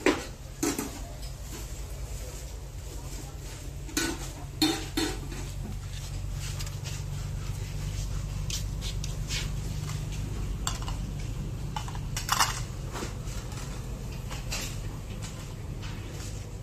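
Crockery clinking and knocking as bowls and dishes are handled, a handful of sharp knocks scattered through, over a steady low hum.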